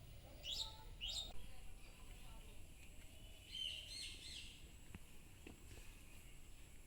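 Wild songbirds chirping faintly: two quick sweeping high notes close together near the start, then a short burst of chirps around the middle.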